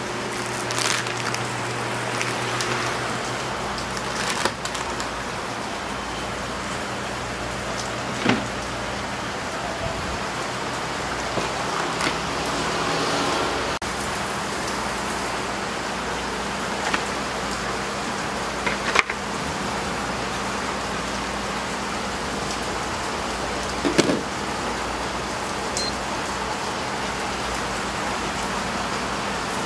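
Steady hiss of room noise with scattered clicks, crinkles and knocks as an instant-ramen packet is handled and the dry noodles and soup powder go into a paper bowl. A louder knock comes near the end.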